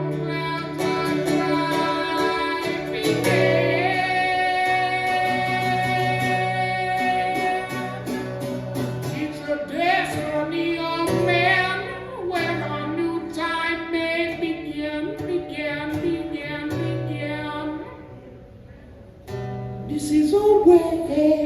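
Live singing with acoustic guitar accompaniment, the voice holding and bending sustained notes between lyric lines. The music drops quieter for a moment near the end, then picks up again.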